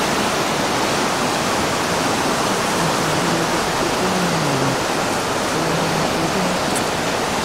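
Muddy floodwater of a swollen river rushing past: a steady, loud wash of churning water.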